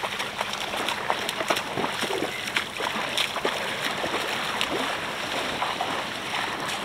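Feet wading and kicking through shallow seawater, with a run of short splashes over a steady wash of water.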